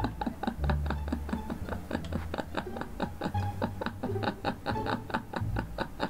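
A woman laughing in a long, unbroken run of short "ha-ha-ha" pulses, about five a second.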